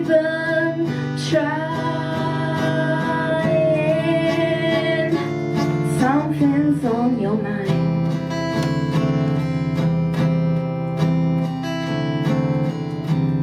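Acoustic guitar strumming chords, with a woman's voice holding long wavering notes over it in the first half. After about seven seconds the guitar carries on alone.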